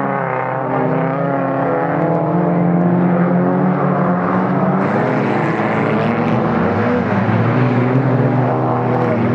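Several autocross race cars' engines running hard together on a dirt oval, their engine notes overlapping and rising and falling as the cars drive through the bends.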